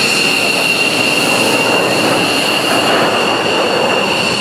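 Twin turbofan engines of an F-15 Eagle fighter jet rolling on the runway at low power: a steady high-pitched whine over a rushing hiss.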